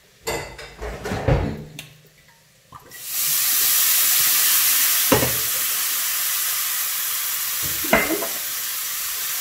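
White wine poured into a hot frying pan of oil, garlic, parsley and flour, setting off a sudden loud sizzle about three seconds in that carries on steadily. A few knocks and clatters come first.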